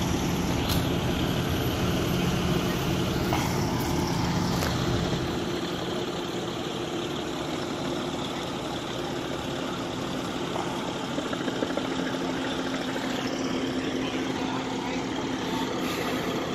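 Fire engine's engine running at a steady pitch, driving its water pump for the hose lines. The low hum eases a little about five seconds in.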